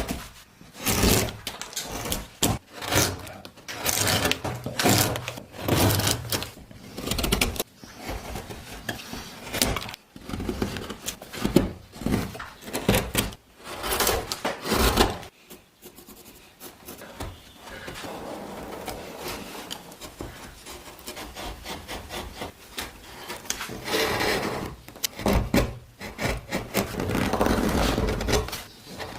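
Hand tools scraping and rasping on wood in quick repeated strokes, giving way about halfway through to a steadier, longer rubbing: wood being shaped for a carving.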